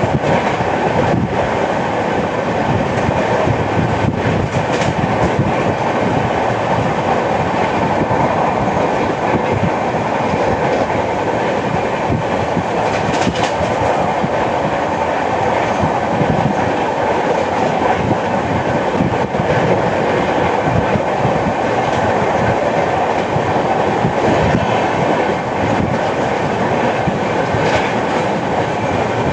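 Express passenger train running at speed: a steady loud rumble of wheels on rail, with a few sharp clicks as the wheels cross rail joints.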